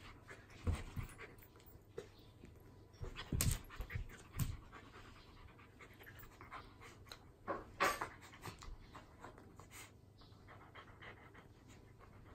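Two dogs play-wrestling: breathing, mouthing and scuffling against each other, with a few sudden thumps. The loudest come about three and a half, four and a half and eight seconds in.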